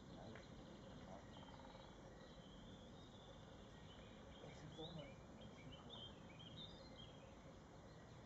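Near silence: faint outdoor background with a scatter of short, faint bird chirps around the middle.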